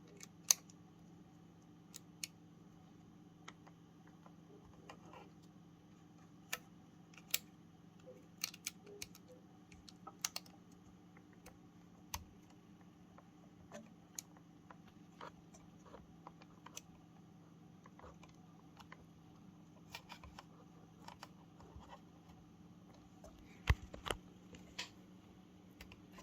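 Scattered sharp clicks and taps of small plastic and metal parts being handled as a car radio head unit is put back together, over a steady low hum. A few louder taps come close together near the end.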